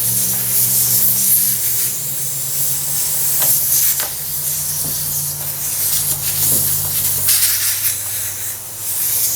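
Air hissing steadily out of a tractor tire's inner tube through the valve stem as the tire is let down; the tube is still holding quite a bit of air.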